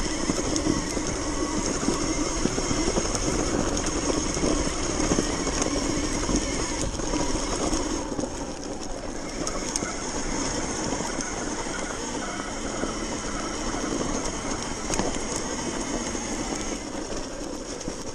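Sur-Ron electric dirt bike riding along a snowy trail: a steady high electric-motor whine over the rattle of the drivetrain and chassis and the rumble of the tyres on snow and bumps.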